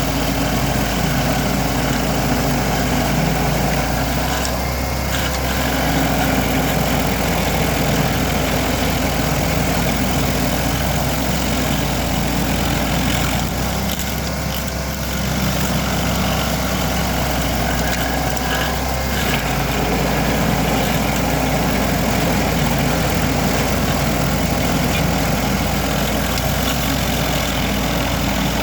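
Vermeer SC382 stump grinder's 37 hp engine running steadily under load as its cutter wheel grinds a dry hickory stump, a continuous mechanical din with a dense grinding hiss over it. The sound eases briefly about four seconds in and again around fourteen seconds in.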